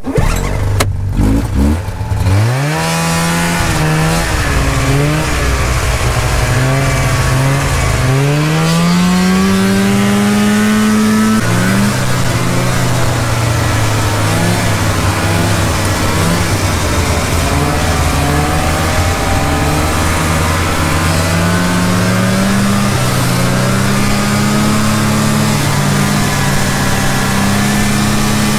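Snowmobile engine running close by under way, accelerating: its pitch climbs in the first few seconds, climbs steeply again from about 8 seconds in, then drops suddenly and settles into a steady cruising note with small rises and dips.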